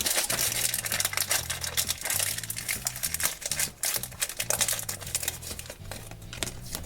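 Plastic toy packaging being handled and opened by hand: a dense, irregular run of small crinkles and crackles.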